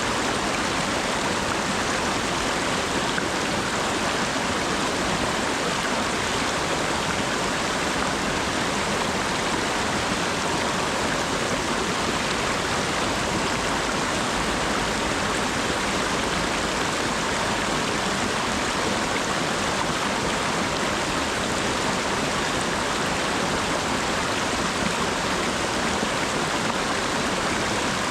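Steady rain falling, an even hiss with no separate drops standing out.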